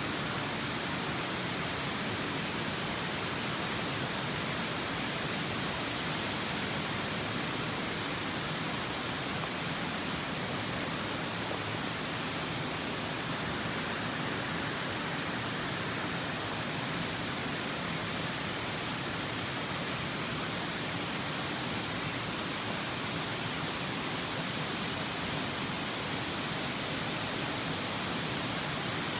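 A steady, even rushing noise that does not change at any point.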